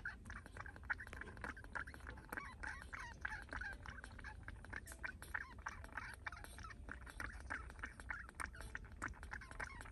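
Baby monkey feeding from a milk bottle, making many small, rapid squeaky sounds and sucking clicks.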